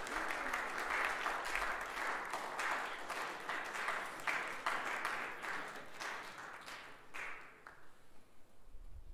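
Pupils applauding in a school hall, many hands clapping together; the applause dies away near the end.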